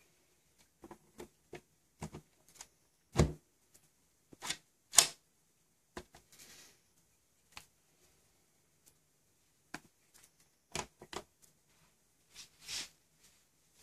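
Plastic parts of a prototype chamber handled and fitted together by hand: scattered clicks and knocks. The loudest are a dull knock about three seconds in and a sharp click a couple of seconds later, with a few more clicks near the end.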